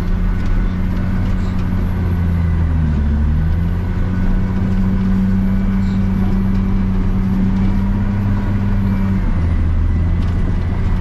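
Cat D7 Next Gen bulldozer's diesel engine running steadily under load while pushing snow. Its pitch dips briefly about three seconds in and shifts again near the end.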